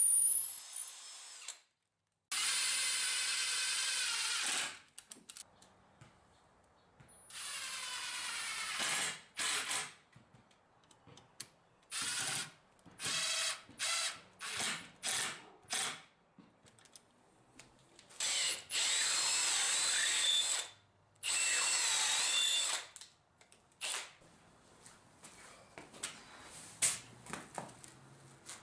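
Cordless drill and impact driver driving screws into pine boards of a wooden stand, in separate runs of one to two and a half seconds. The motor speeds up and slows within the runs, and there is a cluster of short quick bursts in the middle.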